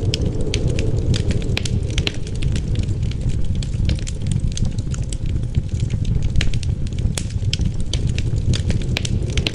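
Wood fire crackling, with frequent irregular sharp pops and snaps over a steady low rumble of wind.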